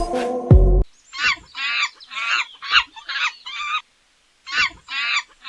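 A string of short, high-pitched, quavering animal calls, coming in bursts of under half a second with a brief pause in the middle, after a music sting cuts off about a second in.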